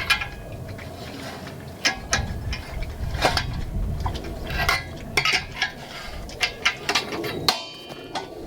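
Hand wrench working on a dually rear wheel, giving a dozen or so irregular sharp metallic clicks and clinks.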